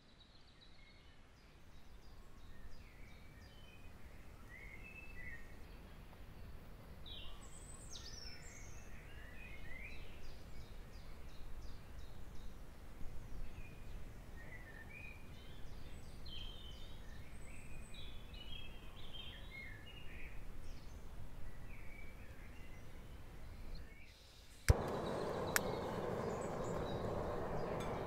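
Dawn chorus of several songbirds, many short chirps and trills over a faint steady background. About three-quarters of the way through, a sharp click and a steady rushing noise come in abruptly and much louder, with a second click a moment later.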